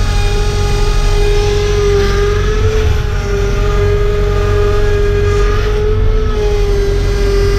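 Skid steer engine running steadily at high revs, with a steady whine over a low rumble and small rises and dips in pitch.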